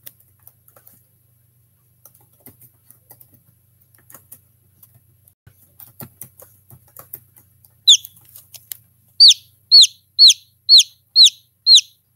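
A hatching chicken chick peeping: a run of short, high chirps, each falling in pitch, starting about two-thirds of the way in and then coming about two a second. Before them there are only faint scattered ticks.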